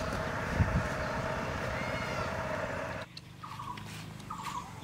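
A steady drone with a held tone and a low rumble, like a running engine, stops abruptly about three seconds in. Then a turkey gobbles twice in short calls.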